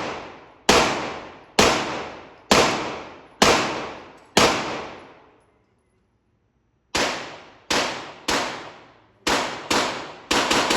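Handgun shots fired one after another, each ringing out with a long echoing tail. A steady string of five comes at about one per second, then after a short pause seven more follow faster and less evenly. The sound cuts off abruptly at the end.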